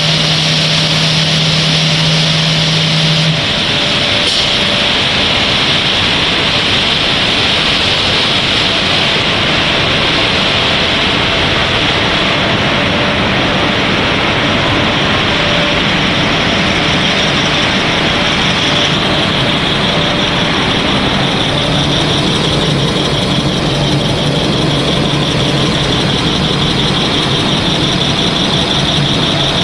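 Snack extrusion production line running: a loud, steady mechanical whir with a strong high hiss and faint humming tones. A low hum drops out about three seconds in.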